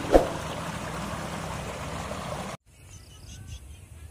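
Fast water rushing down a stone-walled channel, a steady rush with one sharp thump just after it begins. About two and a half seconds in it cuts off abruptly to quiet open-air background with a few faint chirps.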